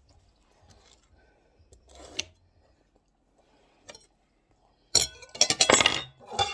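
Faint handling sounds, then about five seconds in a loud clatter of rapid sharp knocks and rattles lasting about a second and a half, as hard tableware or objects are handled.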